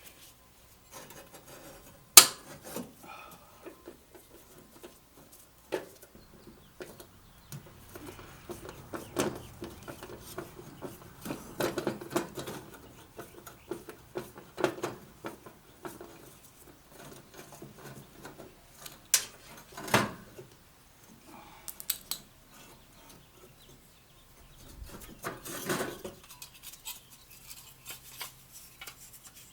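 Scattered clicks, clinks and rustling of hands working on a wiring harness and its parts, with a sharp click about two seconds in and louder clatters around twelve and twenty seconds in.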